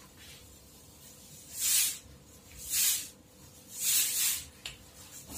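A series of short hisses, about one a second.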